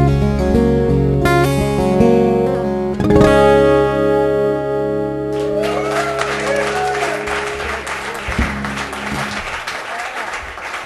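Two acoustic guitars playing together, ending on a final chord struck about three seconds in that rings out and fades. Applause starts about halfway through and builds as the chord dies away.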